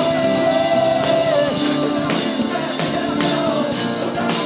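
Live acoustic worship band playing, with a singer holding one long note that ends about a second and a half in, then the band playing on.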